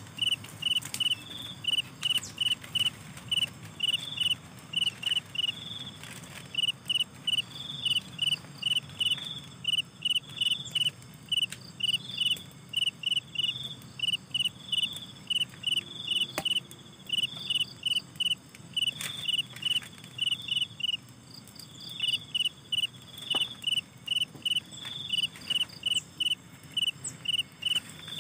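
Crickets chirping: quick runs of short high notes repeating over and over, with a slightly higher call from a second insect every couple of seconds. A few faint clicks come now and then.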